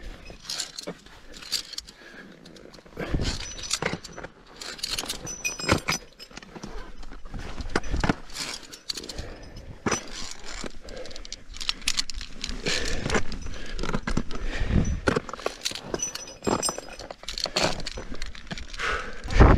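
Via ferrata climbing gear: metal carabiners clinking and sliding on the steel safety cable, and crampon points scraping and knocking on limestone rock as the climber moves up. Irregular clicks, jangles and scrapes, several a second at times.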